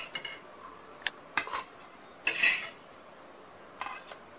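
Metal spatula scraping and clicking against a flat griddle as toasted pav are lifted off and moved to a plate: a few short sharp clicks, with a longer scrape about two and a half seconds in.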